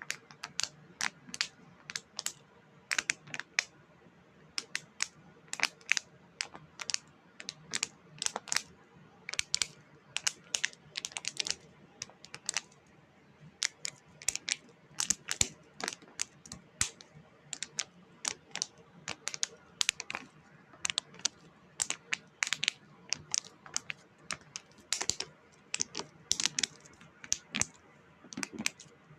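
Irregular run of sharp clicks and taps, several a second with short pauses, like typing on a keyboard.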